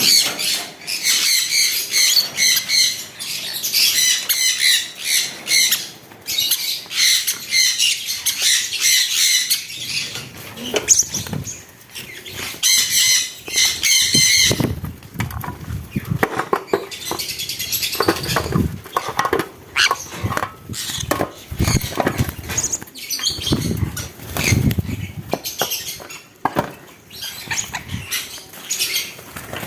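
Pet birds calling in rapid, repeated high-pitched squawks through the first half, then wings flapping and rustling with knocks as the calls stop.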